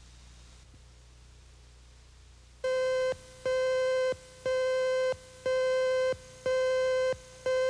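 Electronic slate tone from a TV station's videotape editing station: a steady beep of one pitch with overtones, sounding six times about once a second, starting about three seconds in. A faint low hum comes before the beeps.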